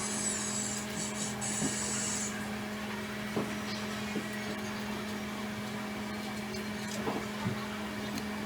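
A steady mechanical hum, with a high hiss broken by short gaps for the first two seconds, and a few light clicks of small tools working on a phone during disassembly.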